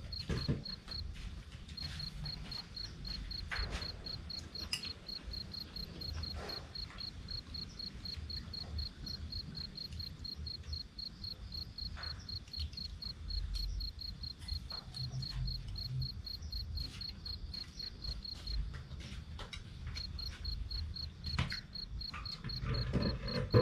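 A cricket chirping in a fast, even, high-pitched pulse, stopping for a couple of seconds about three-quarters of the way through, over a low rumble and occasional faint clicks.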